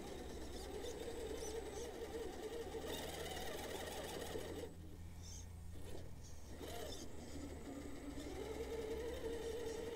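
Axial SCX10 III Gladiator RC crawler's Holmes Hobbies Crawlmaster motor and geared drivetrain whining, rising and falling with the throttle as the truck works its way up a rock ledge. It goes nearly silent for a moment about halfway through, then picks up again.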